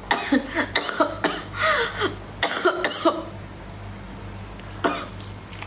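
A woman coughing: a fit of short, sharp coughs for about three seconds, then one more cough near the end, over a steady low hum.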